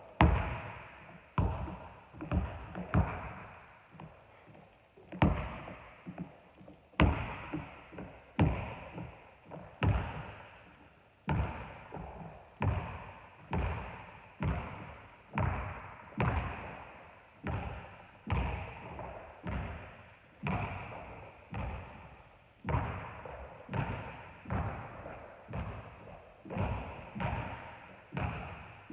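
A basketball bouncing on a hardwood gym floor, dribbled over and over, each bounce trailing a long echo through the empty hall. The bounces are irregular and loudest in the first few seconds, then settle into a steady rhythm of about one and a half a second.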